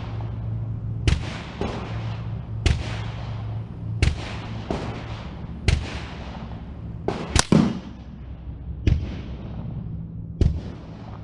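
Rifle gunfire heard from beside the target at 100 yards: a string of about ten sharp cracks with short echoing tails, some coming in close pairs, over a steady low hum.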